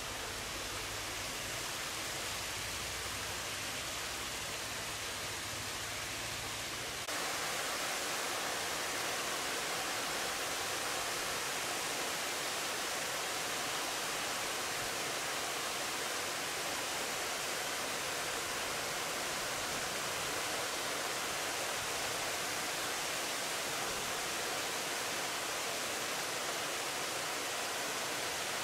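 Steady rushing of a waterfall pouring into a river pool, stepping up louder and brighter about seven seconds in.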